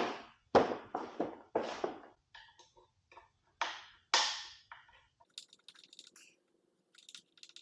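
Hand-tool work on e-bike frame hardware as the second screw is worked out: a few short scraping, rattling bursts, then lighter clicks and taps of small metal parts being handled.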